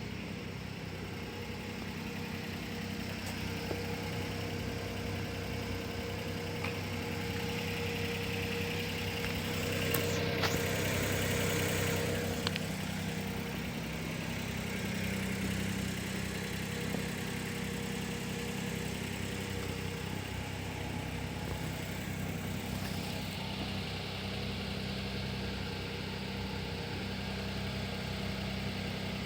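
Daihatsu Hijet Truck S210P's 660 cc three-cylinder engine running steadily at idle, swelling slightly about ten seconds in before settling back.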